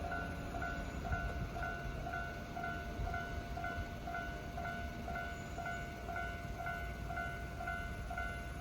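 Japanese level-crossing warning bell ringing steadily, a two-tone electronic ding repeating about twice a second, over a low rumble.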